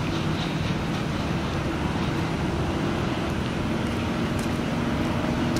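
Steady engine and road-traffic rumble with a low engine drone; a second low engine tone joins about two-thirds of the way through.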